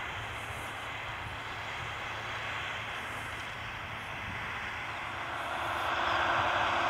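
AGCO Challenger MT775E tracked tractor working under load, pulling a Horsch Joker disc harrow through the soil: a steady engine drone with a dense hiss. It gets louder about five seconds in.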